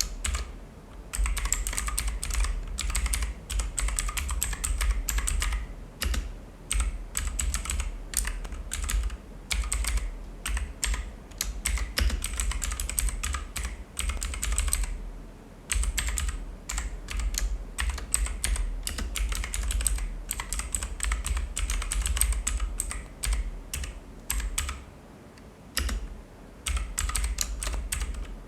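Fast typing on a mechanical keyboard with clicky blue switches (Onikuma Haru), a dense run of sharp clicks with low thuds from the keys bottoming out, broken by short pauses about a second in, around six seconds and around fifteen seconds.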